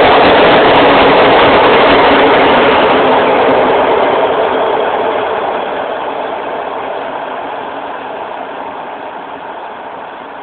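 PKP Intercity TLK passenger train's coaches passing at speed without stopping, a loud steady rolling noise of wheels on rails. About four seconds in the noise begins to fade steadily as the last coach draws away down the line.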